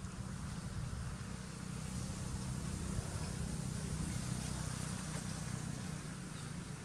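A steady low rumble with a faint hiss above it, even throughout.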